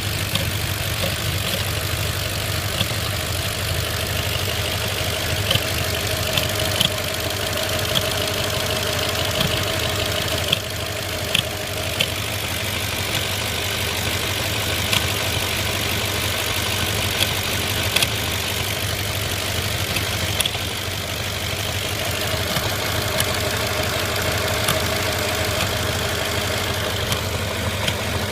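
Audi A6 4.2 V8 engine idling steadily, with irregular sharp thumps breaking through every few seconds. The owner takes them for misfires and thumping from the throttle body or intake manifold.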